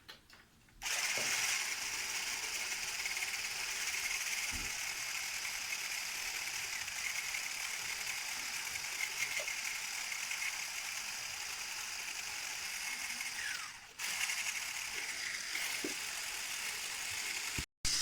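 Electric blender with a whisk running steadily, whipping egg whites into a stiff foam. It starts about a second in, stops briefly near fourteen seconds and starts again.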